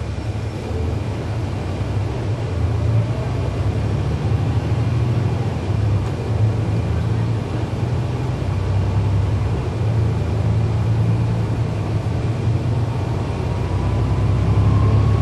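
Cummins ISL9 six-cylinder diesel of a 2011 NABI 40-SFW transit bus running under way, heard from inside the bus as a steady low drone that grows a little louder over the stretch. A faint rising whine comes in near the end.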